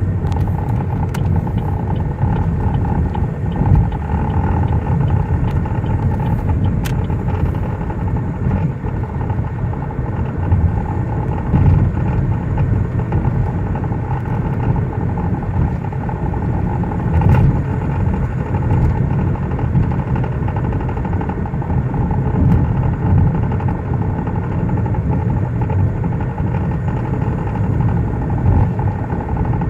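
A 2005 Chevrolet Cobalt driving, heard from inside the cabin: steady road and engine rumble, with an irregular knocking from the driver's-side front end that changes with road speed. Its cause is unknown to the owner, who suspects the steering, a wheel or the drivetrain.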